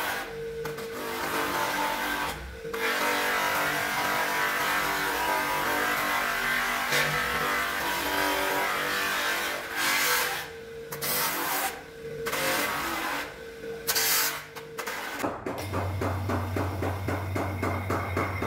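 Bench polisher running, its cloth buffing wheel hissing against the wooden blade of a cricket bat, with several sudden brief dropouts. About three-quarters of the way through, the sound changes to a steady low hum.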